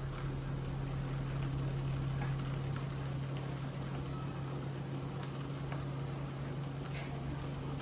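SilverCrest SZM 500 B2 cotton candy machine running: a steady low motor hum from the spinning head, with scattered light ticks and patter above it.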